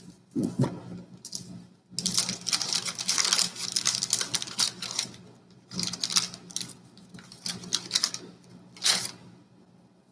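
Crackling and rustling of a 1989 Bowman baseball card pack being opened and its cards handled: a dense stretch of about three seconds, then several shorter bursts.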